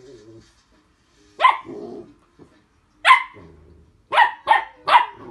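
Belgian Malinois puppy barking at its own tail: five short, sharp barks, two spaced out and then three in quick succession near the end.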